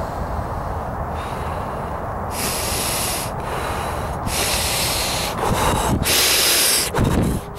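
A person breathing hard right into the microphone: three loud, hissy breaths about a second apart, the last the loudest, over a steady low rumble of wind on the microphone.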